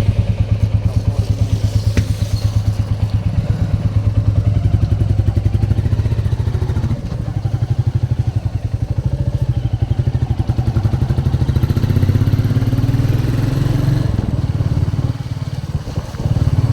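Royal Enfield motorcycle engine running with a steady, even thump of low firing pulses, just after being started.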